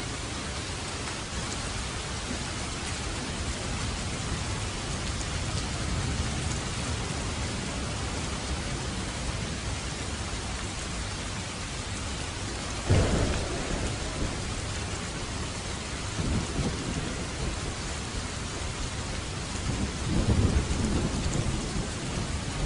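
Steady heavy rain falling, with thunder: a sudden clap about halfway through, followed by rolling rumbles a few seconds later and again near the end.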